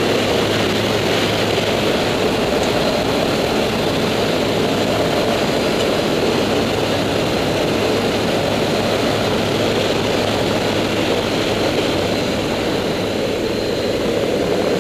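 Loud, steady drone of a Dornier 228's twin turboprop engines and propellers in flight, heard from the cabin with the jump door open, mixed with the rush of air past the doorway.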